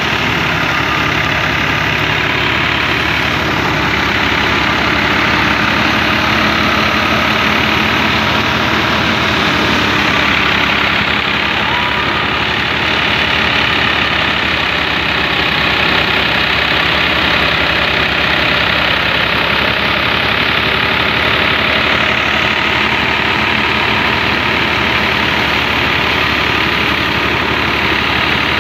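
New Holland 480 tractor's three-cylinder diesel engine running steadily under load, powering a wheat thresher through its PTO shaft, together with the thresher's drum and fan running as one dense, unbroken mechanical noise.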